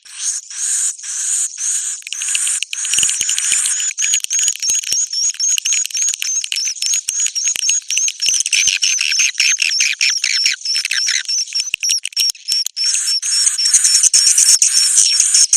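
A bird-call lure recording of a bird giving fast, repeated high chirping notes, about three to four a second. A denser, fuller run of notes comes in the middle, and the notes grow loud again near the end.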